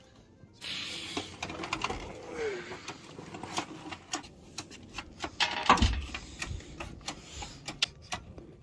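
Irregular metallic clicks and knocks from an engine sitting on a jack as it is shifted into place, with rustling about a second in and a heavy thump about six seconds in.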